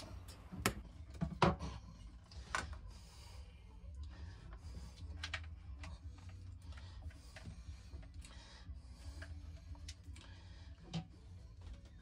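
Electrical wires being handled close to the microphone: a few small clicks and knocks in the first few seconds, then soft rubbing and rustling with scattered ticks, over a low steady hum.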